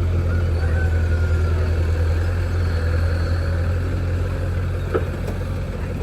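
Diesel engine of the earth-moving machinery running steadily with a deep hum, with a faint knock about five seconds in.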